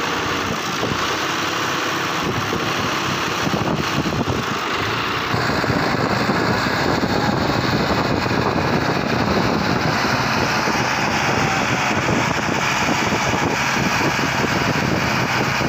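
Tractor engine running steadily, growing a little louder about five seconds in.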